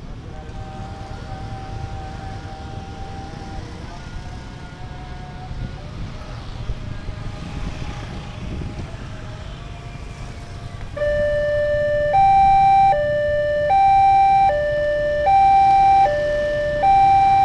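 Motorcycles and cars passing over a railway level crossing, then about eleven seconds in the crossing's electronic warning siren starts: a loud two-tone signal alternating between a lower and a higher note, each held a little under a second. It warns that a train is approaching and the barriers are about to close.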